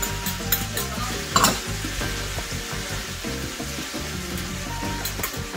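Shaved steak with diced peppers and onion frying in a cast-iron skillet, a steady sizzle, with a fork scraping and clicking against the pan as the food is stirred. There is a louder scrape about a second and a half in.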